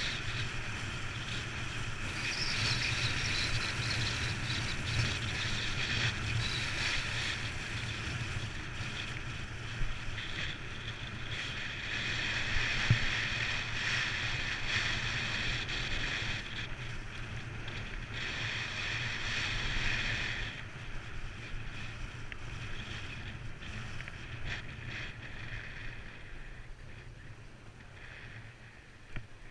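Steady rushing hiss of something sliding fast over snow, with wind buffeting the camera microphone and a low rumble underneath. It fades gradually in the last third as the descent slows.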